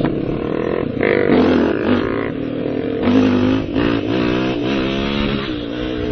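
Quad bike engine running under way, its revs rising and falling several times as it is ridden along.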